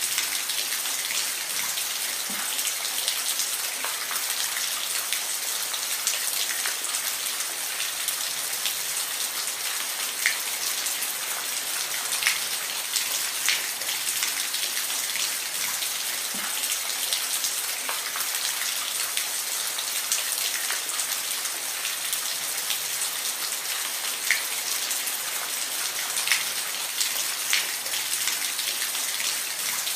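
Steady rain falling, with the sharper ticks of single drops striking a surface now and then through the even hiss.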